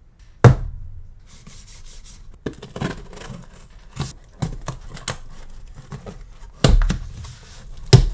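A cardboard box set down on a wooden desk with a sharp thump, then handled and opened: cardboard rubbing and packing tape tearing, with scattered small knocks. There are two more heavy thumps of the box, a little before the end and at the very end.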